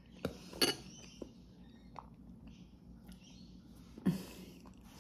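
Quiet chewing and mouth sounds: a few soft smacks and clicks with pauses between them, the loudest about four seconds in.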